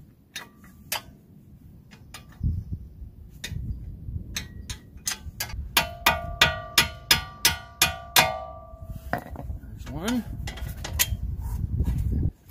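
A small hammer strikes metal at a car's front brake caliper about eight times in quick, even blows, about three a second. Each blow rings briefly. A few scattered knocks and clicks from handling parts come before the blows.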